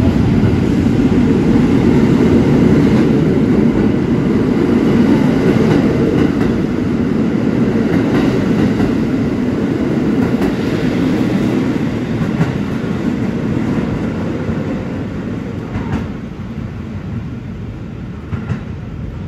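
R46 subway train pulling out and running past along the platform: a steady rumble of wheels on rail that fades gradually in the second half, with a few sharp clicks near the end.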